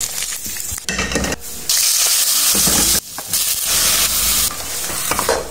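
Hot oil sizzling as fish fry in a pan, then vegetables and a dark sauce sizzling in a hot wok. It comes in short cuts with the level jumping between them, and the steady hiss is loudest from about two to four and a half seconds in.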